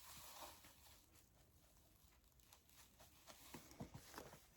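Near silence with faint rustling and a few light clicks of borax powder being scooped and poured into a measuring cup, the ticks clustering near the end.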